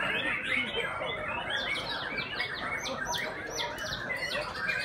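Many white-rumped shamas (murai batu) singing at once: a dense, overlapping chorus of short whistles, chirps and sharp falling notes.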